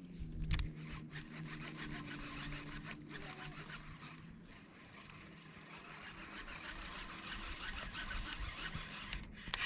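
Steady low hum of a motor vehicle's engine, with one sharp click about half a second in.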